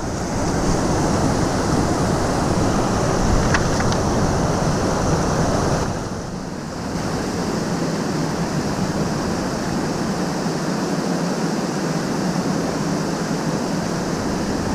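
Small creek waterfall and rapids rushing steadily, dipping briefly about six seconds in.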